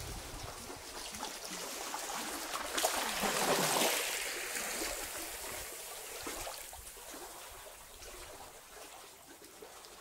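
Small sea waves washing in over a rocky shore, with trickling water; one wave swells to its loudest about three to four seconds in, then fades back to a gentle trickle.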